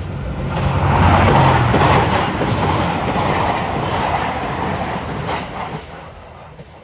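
Train passing at speed, wheels clicking over rail joints. It grows loud about a second in and fades away near the end.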